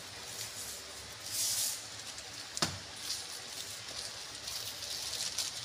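Clear plastic wrap rustling and crinkling as it is handled, with a swell of rustle early on and a run of small crackles in the second half, and one sharp click about two and a half seconds in. A steady low hum runs underneath.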